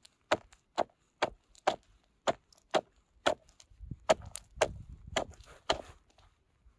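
Steel ice chisel (ice spud) chopping a hole through thin early-season lake ice: sharp, ringing chops at about two a second, a dozen or so in a row.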